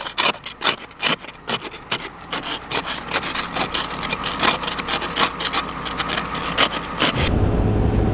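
Hand ice scraper scraping ice off a vehicle's glass in quick, repeated strokes, about two or three a second. About seven seconds in it cuts to a steady low road and engine hum.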